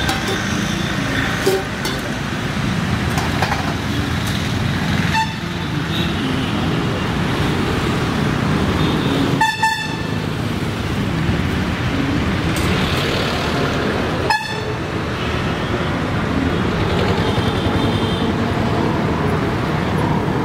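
Steady road traffic noise with vehicle horns honking in short toots, the clearest about nine and a half and fourteen and a half seconds in, and a fainter one a few seconds later.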